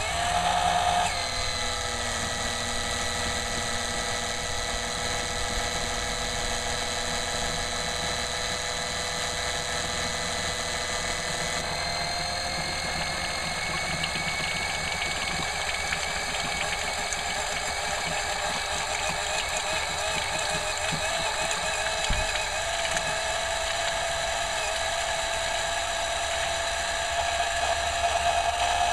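Small battery-powered electric oil extractor pump running, a steady whine with several tones, drawing engine oil out through the dipstick tube. About twelve seconds in its pitch shifts and then slowly rises.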